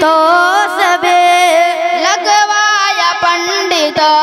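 A young boy singing a naat into a microphone, drawing out long notes that slide up and down.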